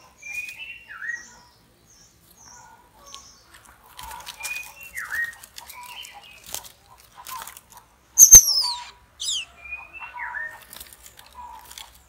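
White-rumped shama calling in short whistled notes and down-slurred calls. About eight seconds in there is a sharp click, followed by a couple of quick, very high descending squeaks.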